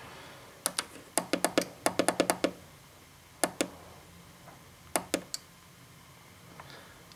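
Tactile push-button switches on a signal generator's keypad clicking as a new frequency is keyed in: a quick run of about a dozen clicks, then a few more in twos and threes, over a faint low hum.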